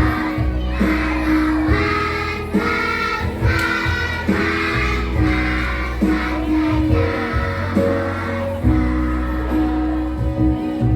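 A kindergarten children's choir singing together over instrumental accompaniment with a steady bass.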